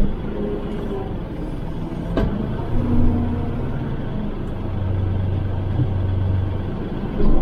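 Kubota L3560 tractor's diesel engine running steadily, with a sharp click about two seconds in and a knock near the end.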